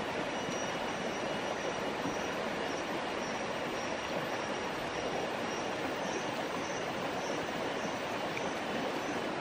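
Steady rush of a rocky stream, water running over stones, with a faint high tone coming and going behind it.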